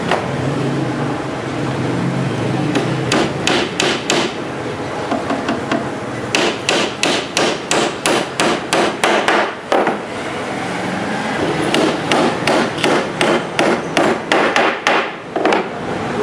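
Hammer driving small nails into a laminated particleboard shelf top: three runs of quick, even strikes, about three a second.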